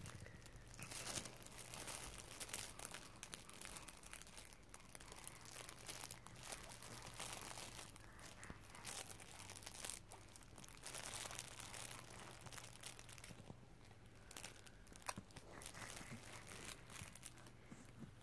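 Faint, irregular crinkling and rustling of a soft fabric baby book as a baby grabs and pulls at its crinkle-filled cloth pages.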